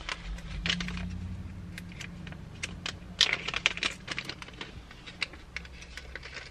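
Small plastic clips and caps clicking and rattling in a clear plastic zip bag as it is handled and opened, a string of light clicks with a brief crinkle of the bag about three seconds in. A low steady hum runs underneath.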